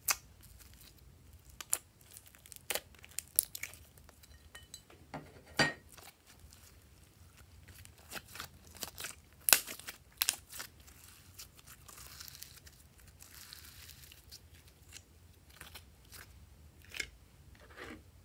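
Glossy slime being peeled out of a tray and squeezed by hand, giving irregular sticky pops, clicks and crackles, with a stretch of soft crackling hiss about two-thirds through.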